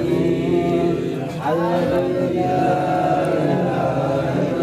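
Religious chanting with long held notes that slide in pitch; it breaks briefly a little over a second in, then a new phrase rises into another held note.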